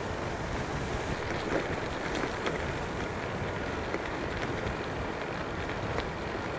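Strong wind buffeting the microphone during a bicycle ride: a steady rushing noise with a few faint clicks.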